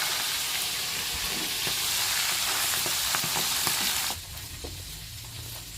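Fish frying in hot oil: a steady sizzle with scattered small pops, which drops abruptly to a quieter sizzle about four seconds in.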